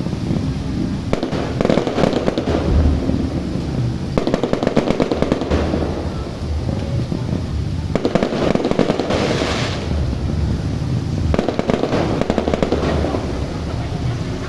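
A box of fireworks (a multi-shot cake) firing in four volleys of rapid crackling pops a few seconds apart.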